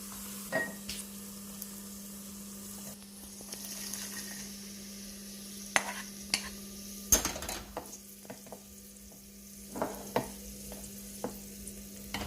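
Cashews and raisins sizzling in hot ghee in a pan while a spoon stirs them, knocking and scraping against the pan now and then, with two sharper knocks midway.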